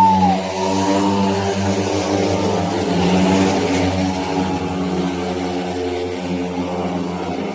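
Several speedway motorcycles, 500 cc single-cylinder methanol engines, running flat out together in a race as one steady multi-engine drone. It eases off slightly as the bikes move away round the track.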